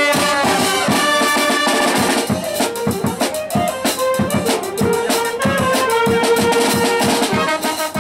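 A txaranga, a street brass band, playing while marching: brass carrying a melody over a steady beat of bass drum and snare.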